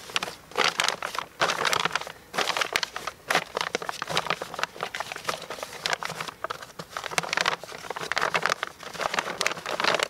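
Clear plastic sheet crinkling and crackling in irregular spurts as hands fold and press it down over a buried barrel's lid.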